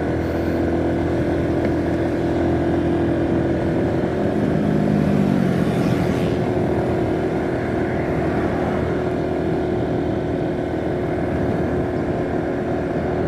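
Motorcycle engine running steadily at cruising speed, about 45 km/h, with wind and tyre noise. A lower engine note swells and falls away about four to six seconds in.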